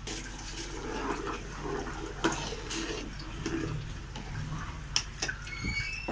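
Milk-and-sugar syrup boiling and bubbling in an aluminium pot while crumbled khoya is dropped in and a steel spoon stirs it, with a few sharp clinks of the spoon against the pot. A brief high squeal sounds near the end.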